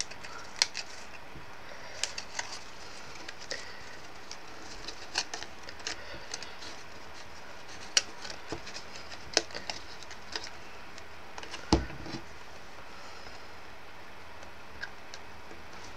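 Cardstock flower pieces being handled and fitted onto a paper stem: scattered light clicks, taps and paper rustles, with a heavier knock about twelve seconds in.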